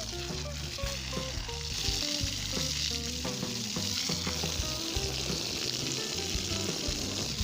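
A steady hiss, with a tune of short notes playing underneath.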